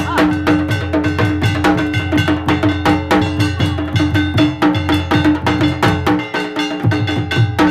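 Bengali dhak drums beaten with thin sticks in a fast, steady run of strokes, with a steady held tone running underneath.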